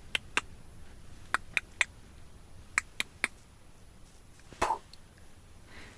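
Sharp short clicks in three quick groups of three, about a second and a half apart, then a single softer short sound about four and a half seconds in.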